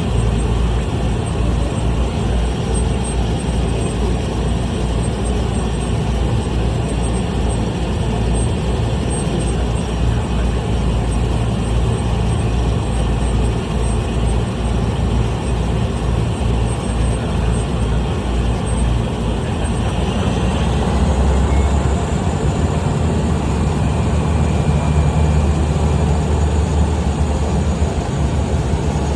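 Small plane's piston engine and propeller running steadily while taxiing. About twenty seconds in the pitch shifts and the low rumble grows a little louder.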